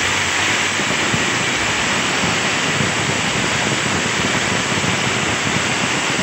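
Electric 5 kg breaker (0810-type demolition hammer) switched on and running without a chisel: a loud, steady, dense rattling hiss.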